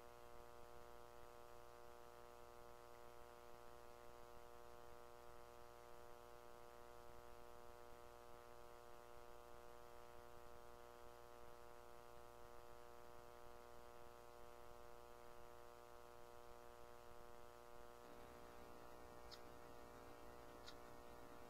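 Near silence with a faint, steady electronic hum from the recording chain. The hum's pattern shifts slightly about eighteen seconds in, and a few faint clicks follow near the end.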